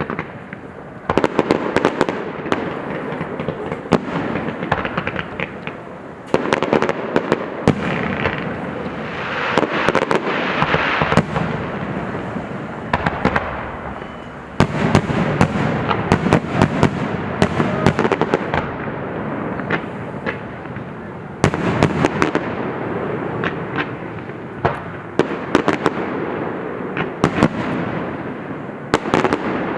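Fireworks display: a dense run of sharp bangs and crackles over a continuous echoing rumble, with fresh volleys breaking out about 1, 6, 15 and 21 seconds in.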